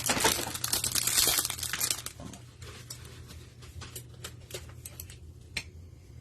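Cardboard and wrapper packaging of a trading-card hanger box crinkling and tearing as it is opened, loudest over the first two seconds, then a few light clicks and rustles.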